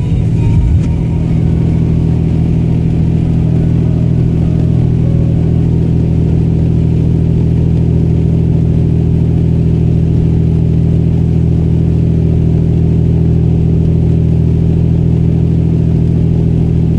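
Steady engine and road drone of a moving car heard from inside the cabin, holding level throughout.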